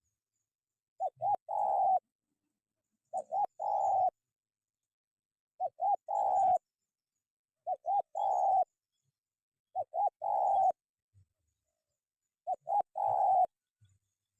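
Spotted dove cooing, six phrases about two seconds apart, each two short notes followed by a longer rolling coo.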